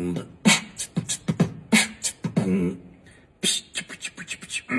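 Human beatboxing: sharp mouth-made drum hits and short pitched vocal sounds. There is a brief pause past the middle, then a fast run of clicks.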